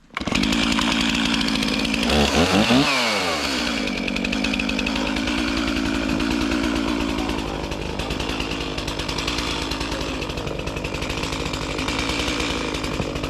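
Stihl MS311 two-stroke chainsaw running at high speed. It comes in abruptly, revs up and drops back about two to three seconds in, then runs steadily on.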